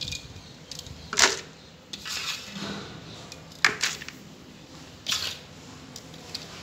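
Dry field soil being crumbled and scooped by hand in a steel tub and dropped into a plastic tub: a few separate gritty rustling bursts, the loudest about a second in and near four seconds in.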